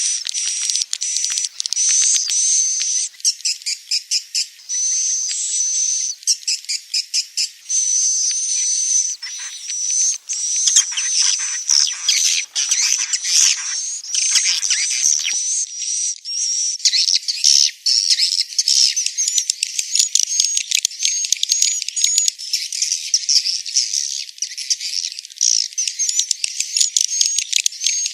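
Swiftlet call recording: dense, high-pitched chirping and twittering with fast rattling trains of clicks and a thin, steady whistle-like tone running through it. It is the kind of lure sound played to draw wild swiftlets to nest in a swiftlet house.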